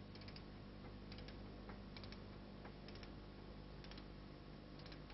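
Faint clicking of a ratcheting ring spanner swung back and forth on a camshaft flange bolt as the bolt is run in, drawing the journal against the camshaft section. The clicks come in short runs of two to four about once a second, over a steady low hum.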